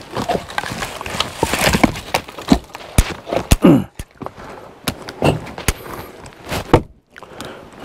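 Split firewood logs clunking against each other as they are handled and set down on a woodpile: a series of irregular wooden knocks with rustling and scraping between them.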